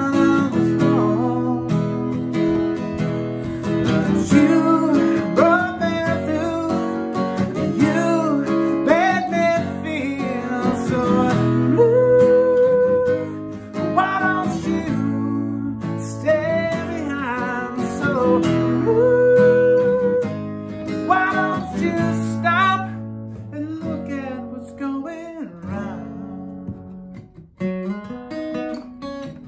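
A man singing to a strummed acoustic guitar, holding some long notes. In the last few seconds the singing thins out and the guitar plays on more quietly.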